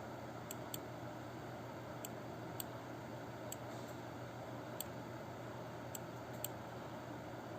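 Computer mouse clicking now and then, about eight short sharp clicks at uneven intervals, over a steady low hum.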